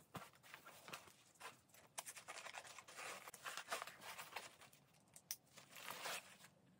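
Faint, irregular rustling and scraping of a homemade plate carrier's fabric and webbing straps being handled and adjusted, with a few small clicks.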